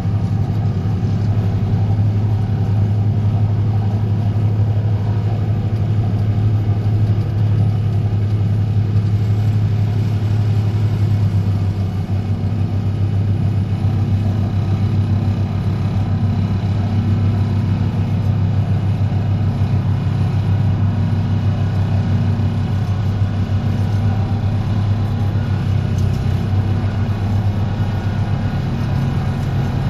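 DPD350T vibro hammer on an excavator driving a steel sheet pile: a loud, steady, low vibrating drone with the excavator's engine working under load, easing off slightly about twelve seconds in.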